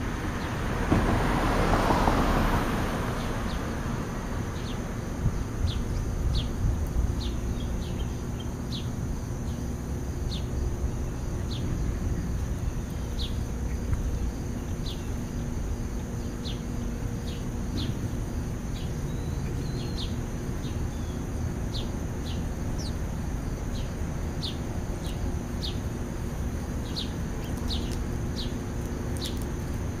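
House sparrows chirping in short, sharp, high chirps, scattered about once a second, over a steady low outdoor rumble. A broad rushing swell rises in the first second and fades over the next few seconds.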